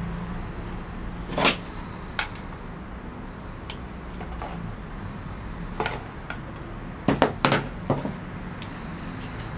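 Handling noise from plug-in plastic power meter sockets and their packaging: scattered hard clicks and knocks, with a quick cluster of sharper clicks about seven seconds in, over a steady low hum.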